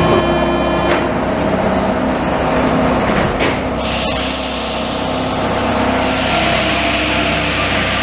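Paris Métro train at the platform: the doors shut with a click about a second in, then a loud hiss of released air builds around four seconds in. A steady hiss and hum follow as the train gets under way.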